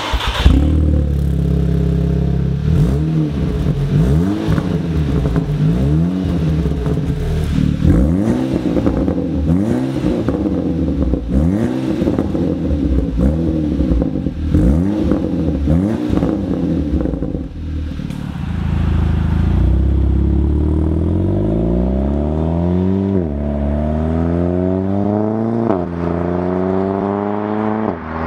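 Audi TT 2.0 TFSI turbocharged four-cylinder with a 76 mm turbo-back exhaust and its valve flap closed. It starts right at the beginning, then idles and is blipped about once a second in repeated quick revs. In the last ten seconds the engine pulls hard with its pitch climbing steadily, dropping sharply twice like upshifts.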